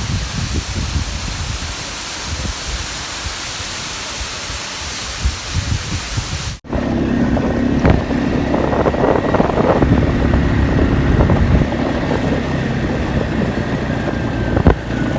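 Wind buffeting the microphone over a steady hiss. About six and a half seconds in, an abrupt cut gives way to a steady mechanical rumble with a faint high whine.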